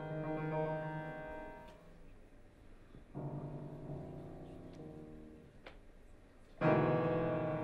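Solo piano playing slow classical chords, each left to ring and fade: a chord dies away in the first two seconds, a softer chord comes in about three seconds in, and a loud chord is struck near the end.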